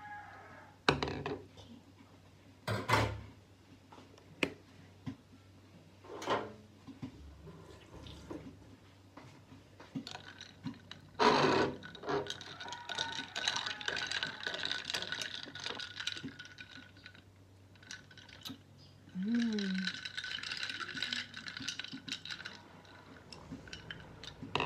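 A spoon stirring iced coffee in a drinking glass, scraping and clinking against the glass so that it rings, in two longer stretches in the second half. Before that, several sharp knocks of the glass or utensils on the counter.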